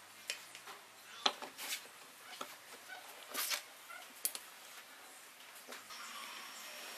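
Scattered light clicks, taps and scrapes of small wooden pieces, a bolt and a steel ruler being handled and set down on a wooden workbench.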